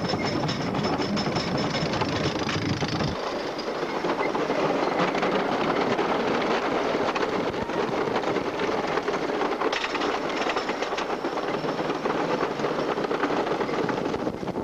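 Screamin' Eagle wooden roller coaster train running at speed over its wooden track, wheels clattering. A low rumble drops away about three seconds in.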